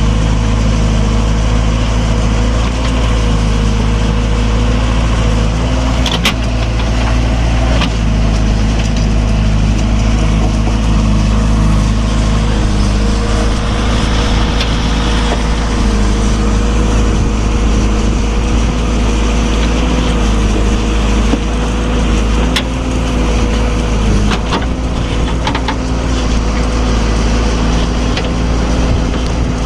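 Diesel engine of earthmoving machinery running steadily with a slightly wavering pitch, and a few sharp knocks over it.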